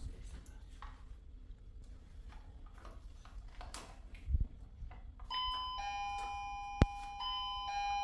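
Electronic doorbell chime playing a short tune of steady, pure notes that step between two pitches, starting about five seconds in, with a single sharp click partway through.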